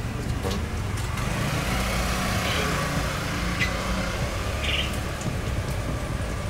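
Steady low rumble of a running engine, like a vehicle idling.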